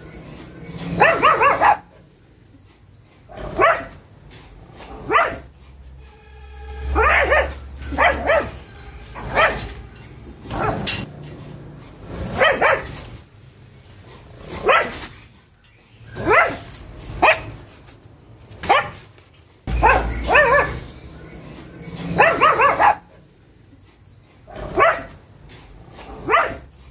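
Pug barking over and over, single barks spaced about one to two seconds apart, with quick runs of several barks near the start and again about three quarters of the way through.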